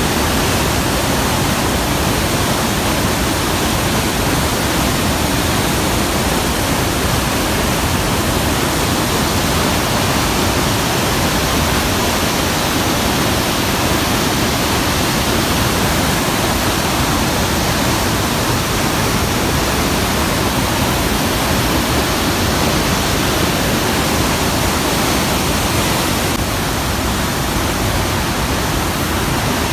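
Loud, steady rushing roar of a waterfall, its whitewater churning through rapids. It drops slightly in level near the end.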